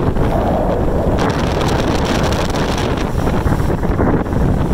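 Strong hurricane wind buffeting the microphone in a steady, heavy rumble, with the wash of choppy water and waves breaking on a rocky shore underneath.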